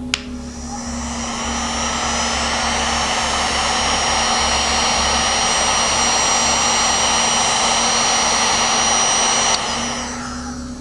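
Electric heat gun switched on with a click, its fan building up over the first couple of seconds and then blowing steadily with a high whine while it shrinks heat-shrink tubing; it is switched off near the end and runs down.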